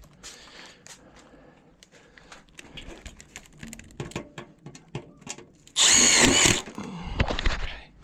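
Power drill driving a self-tapping screw: a short burst of motor whine about six seconds in, then a second, shorter run as the screw seats. Before it, light clicks and rattles of screws being handled.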